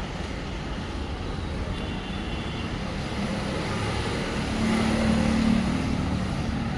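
Motor vehicle engine running with road noise, a steady drone that swells a little past the middle with a brief low hum.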